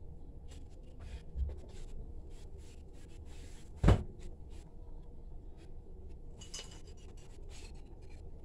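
Handling noises of a plastic margarine tub on a kitchen counter: light clicks and rubbing as it is opened and handled, with one sharp knock about four seconds in.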